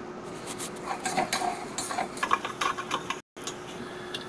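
Metal spatula scraping and tapping against a frying pan while stirring scrambled egg, making irregular clicks and scrapes over a faint steady hum. The sound cuts out for a moment about three seconds in.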